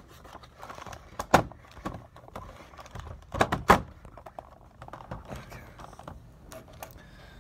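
Phone handling noise and objects shuffled on a desk while the phone is propped up, with scattered clicks and knocks. The loudest knocks come a little over a second in and then twice close together at about three and a half seconds.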